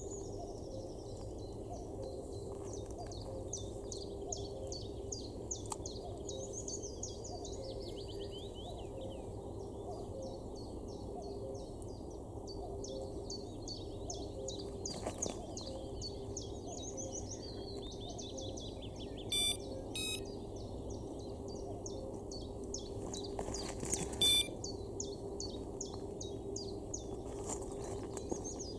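Small birds singing busily in the reeds, fast repeated high chirps with hardly a pause, over a steady low hum. Two short, sharp beeps stand out, about two-thirds of the way in and again some five seconds later.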